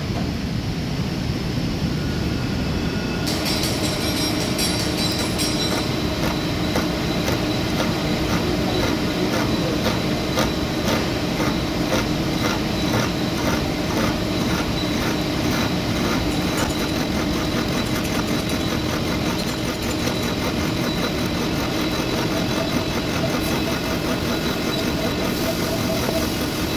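Milling machine running a boring bar that cuts the bore of a forklift steering axle housing: a steady machine drone with a fast, even ticking from the cut that starts about three seconds in.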